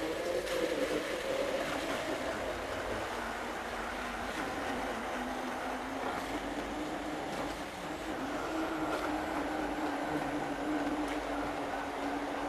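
Electric hand blender running inside a glass bottle, a steady whirring motor noise. Its pitch sinks over the first few seconds, then holds level.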